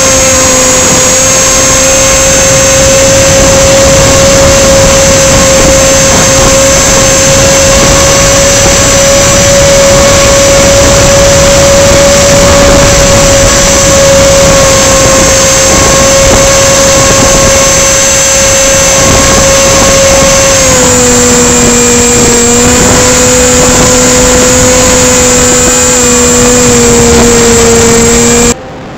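RC plane's motor and propeller running at high revs, heard from a phone mounted on the plane, with heavy wind noise on the microphone. The pitch holds steady, dips slightly about three quarters of the way through, and the sound drops away suddenly near the end.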